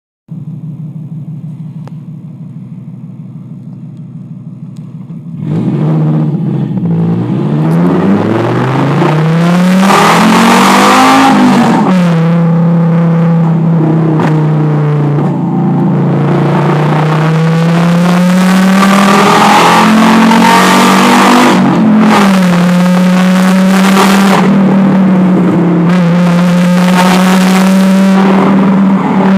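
Fiat Marea's engine running through an aftermarket 'difusor' exhaust: a quieter steady idle for about five seconds, then much louder as it is revved, climbing to a peak and dropping back, revved again later, and otherwise held at a steady raised speed.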